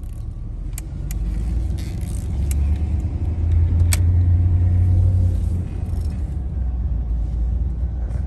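Van engine and road noise heard from inside the cabin as it drives: a low hum that grows louder over the first few seconds as the van pulls away and picks up speed, then eases off and holds steady. A few sharp clicks or rattles come through along the way.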